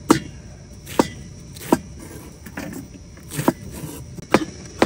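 Cooking utensils knocking: about six short, sharp knocks, irregularly spaced.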